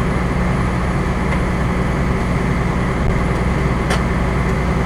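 Fire engine's engine running steadily, heard from inside the cab as a continuous low hum with a steady rushing noise over it.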